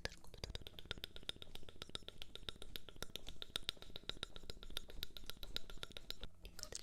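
Rapid, even ASMR tapping: a fast run of light, crisp clicks, about ten a second, lasting about six seconds and stopping shortly before the end.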